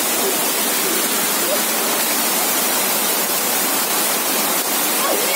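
Steady rushing of river water, an even hiss that holds the same level throughout.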